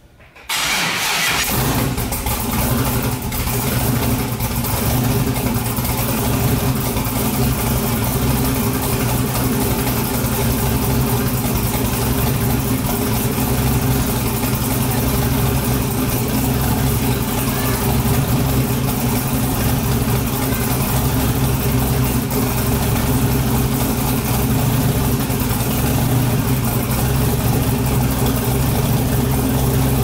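GM LS-series V8 engine, controlled by a Microsquirt on a nearly stock base tune, cranks briefly and catches about half a second in, then idles steadily at about 1000 rpm: a one-push start and a stable idle.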